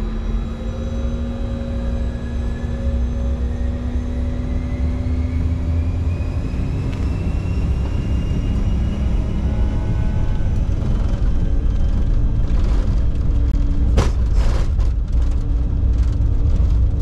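Bombardier Challenger 605's twin GE CF34 turbofans spooling up to take-off thrust, heard in the cockpit: a deep rumble that grows steadily louder under whines that rise in pitch over the first several seconds. As the jet starts its take-off roll, a few sharp knocks come about twelve to fifteen seconds in, the loudest near fourteen seconds.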